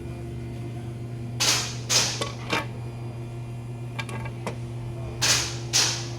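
Honda Civic engine running rough with a misfire, a steady low hum broken by irregular sharp hissy puffs, in two pairs, and a few light clicks. The owner blames a broken camshaft.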